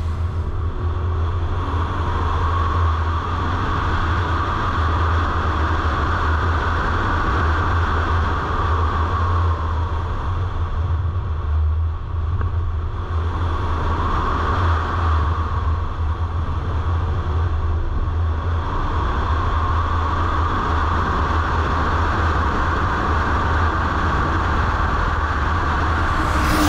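Audi RS5 Sportback driving on a wet circuit: a steady low engine drone under a hiss that swells and fades several times.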